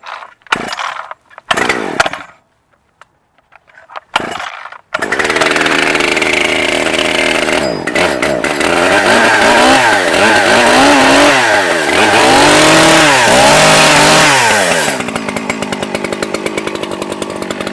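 Brand-new Echo CS-7310P 73.5 cc two-stroke chainsaw being pull-started cold for the first time: a few pulls on the starter cord, then it catches about five seconds in. It is revved up and down several times, then drops to a steady pulsing idle near the end.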